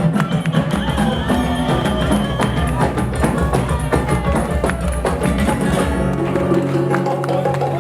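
Brazilian percussion-driven music with many sharp hand-percussion strokes over sustained pitched parts; the deep bass drops out about six and a half seconds in.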